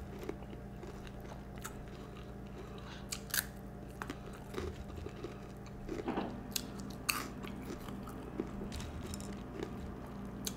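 A person chewing a mouthful of crunchy Peeps marshmallow-flavoured cereal, with irregular sharp crunches scattered throughout.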